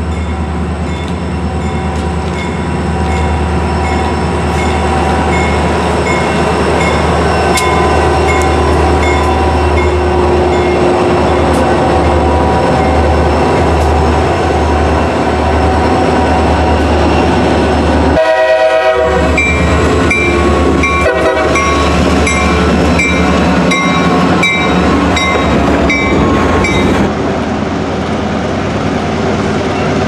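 EMD diesel locomotives pass with their engines running, then freight cars roll by with wheels clacking on the rails, while a grade crossing bell rings at about two strokes a second. The sound changes abruptly near the end as another locomotive's engine takes over.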